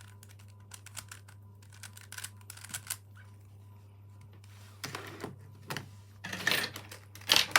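Megaminx puzzle being turned by hand, its plastic layers clicking in quick irregular runs that grow louder and denser in the last few seconds, over a steady low hum.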